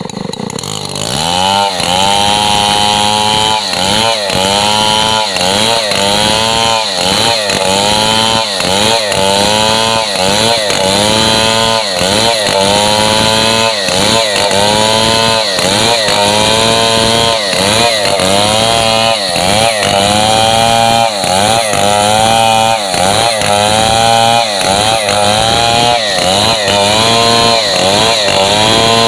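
Stihl MS 070 two-stroke chainsaw revving up to full throttle about a second in, then ripping lengthwise along the grain of a gmelina timber. Its engine pitch dips under load and recovers over and over in a steady rhythm.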